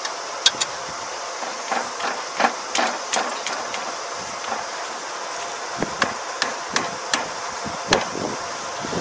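Hammer blows on bent steel parts of an ER470 combine's damaged tine section, knocking them back into shape. About a dozen sharp, uneven strikes, with a pause of about two seconds in the middle.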